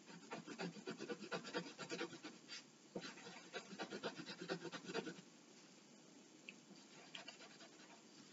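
Pencil scratching on paper in quick back-and-forth strokes while shading in a drawing's small eyes. It stops about five seconds in, leaving only a few faint ticks.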